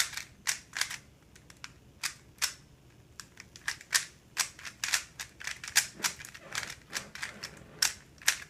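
Mo Fang Ge 3x3 cube's plastic layers clacking as they are turned fast, in irregular runs of several sharp clicks a second.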